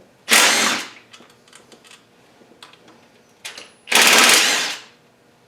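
Two short bursts of a power tool, each under a second, with a fast rattling rhythm, as the two 10 mm bolts joining the lower oil pan to the upper oil pan are run out.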